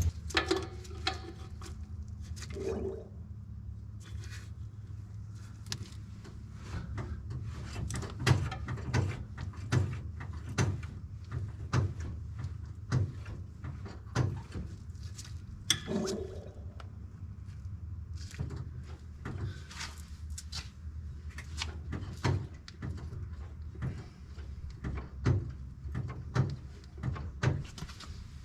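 Irregular mechanical clicks and knocks from brake-bleeding work on a Jeep's rear brakes, over a steady low hum.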